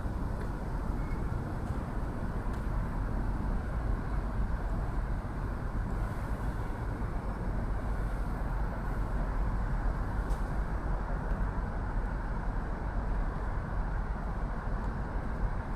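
Steady, continuous noise of road traffic, an even hum with no single vehicle standing out.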